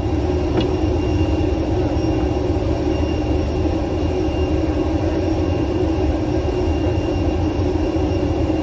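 Steady airliner cabin noise aboard an Airbus A320: a constant rumble and hum with a faint high whine.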